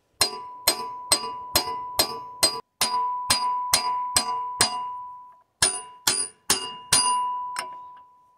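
Steel hammer beating a seized steel pin out of a tractor backhoe bracket, about two blows a second with a short break about five seconds in. Each blow rings with a clear metallic tone. The pin is stuck fast and is being driven out with WD-40 and repeated hammering.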